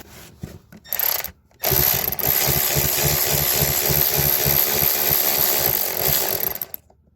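Milwaukee M12 cordless electric ratchet spinning a loosened exhaust manifold nut off its stud. It gives a short blip about a second in, then runs steadily for about five seconds with a regular pulse four or five times a second, and stops near the end.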